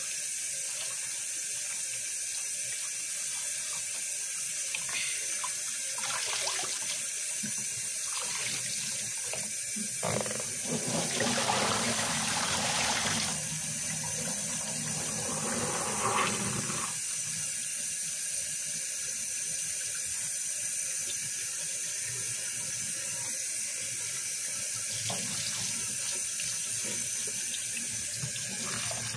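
Kitchen tap running steadily into a plastic basin in a stainless-steel sink, with water splashing. For a few seconds in the middle the rush of water grows louder.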